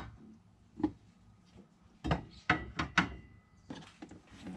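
A long metal wall-mount bar knocking and clattering against a wooden board as it is fitted into the board's groove: about eight sharp knocks, a few of them with a brief metallic ring.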